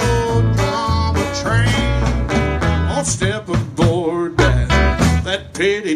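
A live band playing a rock-tinged country song on drums and electric guitars, with a steady beat.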